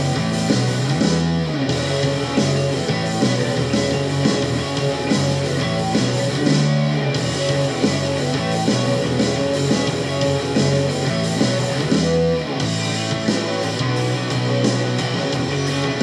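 Rock song with guitar played through the VeGue 1088 Bluetooth karaoke speaker and heard in the room, thin in the bass.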